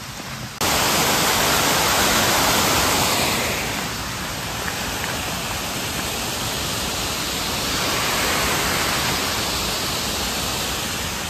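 Rushing water of a mountain stream in a gorge: a steady, loud rush that starts abruptly about half a second in.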